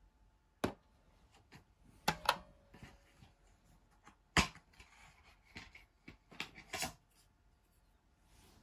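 Plastic DVD keepcase being handled, opened and the disc unclipped from its hub: a string of sharp clicks and knocks, one about half a second in, a pair near two seconds, the loudest past four seconds, and a quick cluster near seven seconds.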